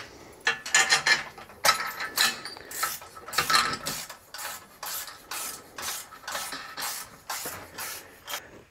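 Hand tools working on metal hardware: a run of short, irregular scraping and clicking strokes, a few per second, as the attic lift's motor is bolted in place.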